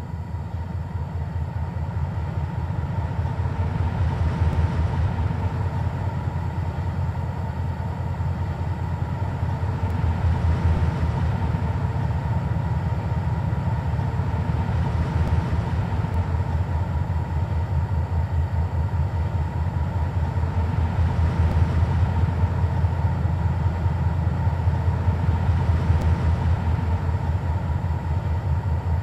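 Train rumbling: a low, steady diesel-engine drone, swelling slightly every five seconds or so.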